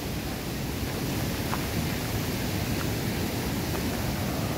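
Steady rushing noise of a fast-flowing creek, with a few faint ticks.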